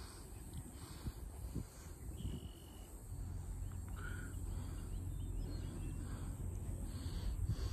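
Open-country ambience: a low, uneven rumble with faint bird calls over it, one thin held whistle about two seconds in and a short call about four seconds in.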